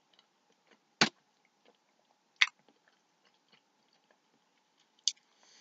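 Someone eating: quiet chewing broken by three sharp clicks, about a second in, a second and a half later, and near the end.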